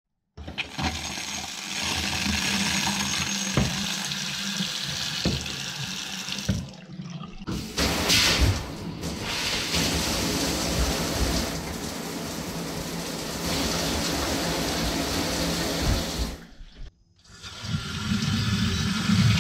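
Household taps and a showerhead running water in several short takes: a steady rush of flowing and splashing water that cuts off and starts again twice. The fixtures have full flow again from a newly installed submersible well pump.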